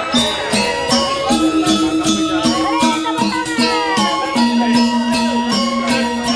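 Background music with a steady beat of about two strokes a second over sustained bass notes that shift pitch a few times.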